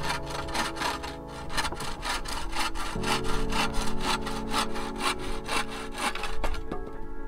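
Hand bow saw cutting through a wooden pole, in quick, even back-and-forth strokes, several a second.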